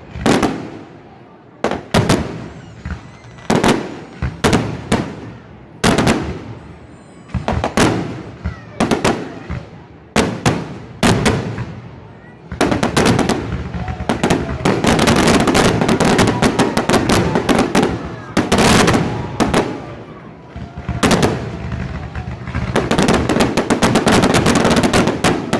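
Fireworks shells bursting, sharp bangs about once a second. About halfway through, and again near the end, they run together into dense rapid crackling barrages.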